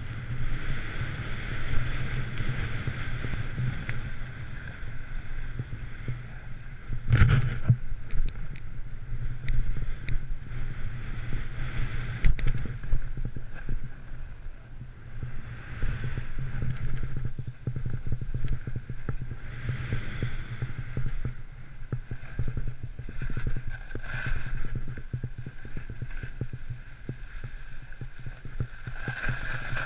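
Wind buffeting a body-worn action camera and snow hissing under the rider while descending through deep powder: a steady low rumble with a swishing hiss that swells and fades with the turns, and a louder thump about seven seconds in.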